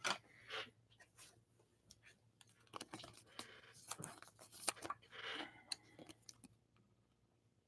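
Faint rustling and small clicks of trading cards and thin plastic card sleeves being handled. A card is being slid into a protective sleeve. The rustling comes in short patches a few seconds in, with scattered light clicks.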